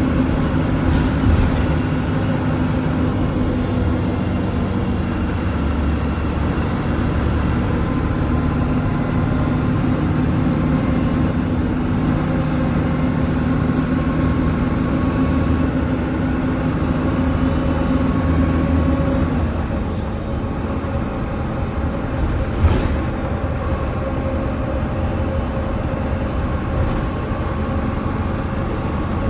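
MAN NL202 bus's diesel engine running with its ZF gearbox, heard from inside the cabin. The steady engine note drops away about two-thirds of the way through, and a single knock follows a few seconds later.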